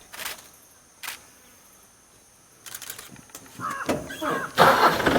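Crows cawing a couple of times, then a loud burst of rushing, rattling noise lasting about a second near the end.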